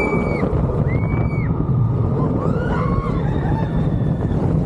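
Roller coaster train running along its track with a steady low rumble. Two short high-pitched squeals come at the start and about a second in, and fainter ones a little before the end.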